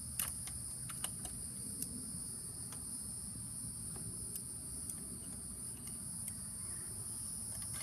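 Steady high-pitched trilling of an insect chorus, unbroken throughout, with a few light scattered clicks from handling the trolling-motor mount.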